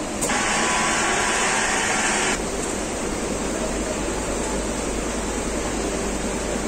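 Richpeace computerized quilting machine running with a steady mechanical noise. A louder hiss lasts about two seconds near the start and cuts off abruptly.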